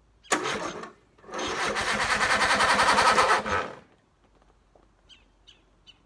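Troy-Bilt riding mower being started: a short burst, then about two and a half seconds of fast, rhythmic engine cranking that grows louder and stops sharply.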